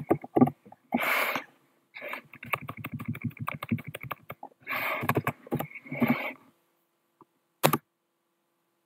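Typing on a computer keyboard: quick runs of key clicks and thuds, with a couple of short breathy sounds between them and a single sharp key strike near the end.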